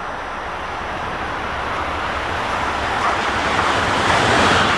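High-speed train running past at speed: a steady rush of wind and rail noise that grows louder toward the end.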